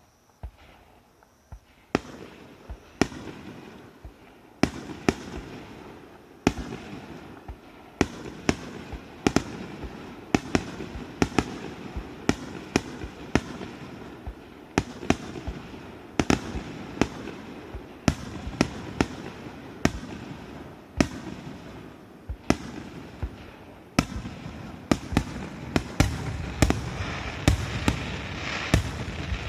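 Fireworks bursting overhead: a run of sharp bangs, about one or two a second, with crackling between them. The bursts start faintly and grow denser and louder near the end.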